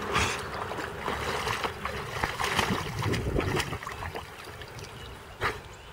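Water splashing and sloshing as a Weimaraner wades through shallow lake water, busy at first and fading over the last couple of seconds. A single sharp click comes near the end.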